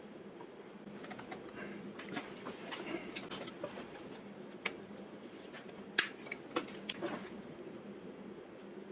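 Small metallic clicks and clinks of a steel wire cable being worked with hand tools, a crimping tool and cable cutters, with a couple of sharper clicks around the middle.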